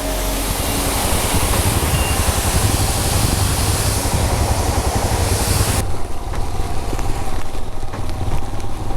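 Royal Enfield Himalayan's single-cylinder engine rumbling low under a loud rush of wind on the helmet mic while riding. The high hiss drops away about six seconds in, leaving the engine rumble.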